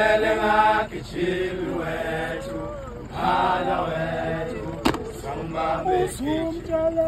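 A group of voices chanting a Zulu song in held, repeated phrases with short breaks between them. A single sharp knock comes about five seconds in.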